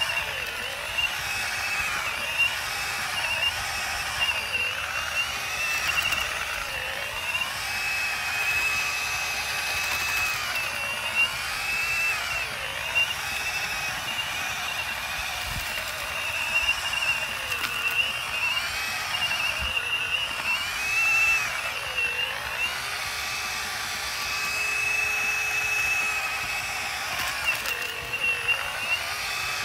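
Ryobi 18V One+ HP brushless mud mixer running steadily, its paddle churning a bucket of concrete mix. The motor gives a steady high whine whose pitch wavers slightly as it works through the mix.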